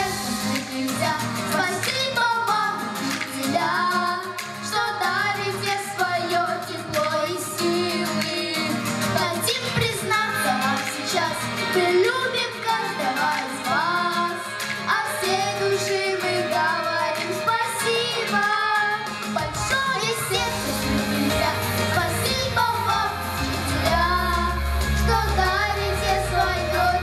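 A children's vocal trio, a girl and two boys, singing a song into microphones over accompanying music. Past the middle, a deep bass line comes in under the voices.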